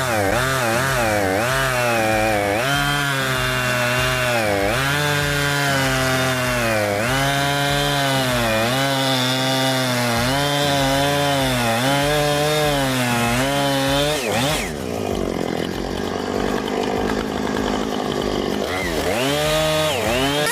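Husqvarna 460 two-stroke chainsaw running at high revs while cutting wood. Its engine pitch dips under load and recovers every second or two. About 14 seconds in the pitch falls away and the sound turns rougher, then it revs up again near the end.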